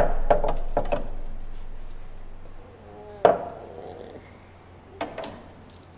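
Short knocks and clicks of hand tools and bolts being handled during panel removal: a quick run of taps at the start, then two single sharper knocks about two seconds apart.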